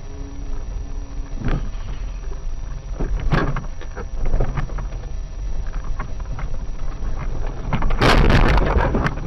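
Car on the road heard from inside, with steady engine and road rumble. Several sharp knocks come through it, and about eight seconds in there is a loud, noisy burst lasting about a second, typical of a collision.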